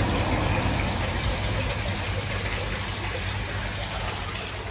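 Steady splashing and trickling of water falling onto a koi pond's surface, with a low rumble underneath.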